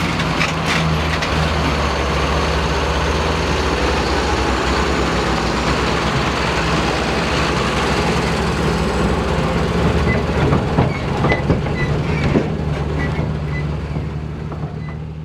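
Diesel engine of a large farm machine running steadily, with scattered clicks and rattles in the second half; the sound fades out near the end.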